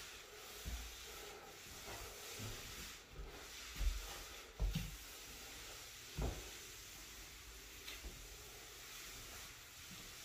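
Faint rubbing swish of a floor mop pushed across a hard floor, with a few soft low thumps scattered through.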